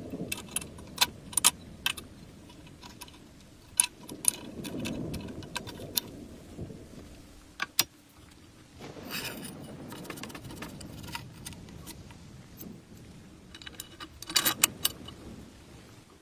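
Metal parts and hand tools clinking and clicking as they are handled, in irregular clusters of sharp, ringing clicks over a low rumble of handling noise.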